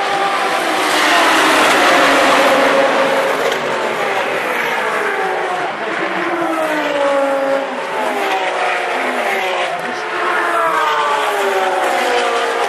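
A field of GT3 race cars accelerating hard at full throttle just after the start, passing in a pack as a dense mix of engines. The pack is loudest a second or two in, and after it single cars go by one after another, each engine's pitch falling as it passes.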